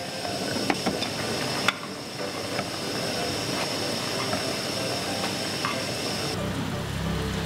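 Water boiling hard around instant noodles in a small pot, a steady bubbling hiss, with a few sharp clicks from the glass lid and wooden chopsticks against the pot, the loudest about two seconds in.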